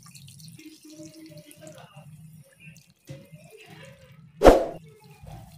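Water poured from a stainless steel bowl into a cooking pot, a thin stream splashing onto the fish and vegetables, with a single loud knock about four and a half seconds in.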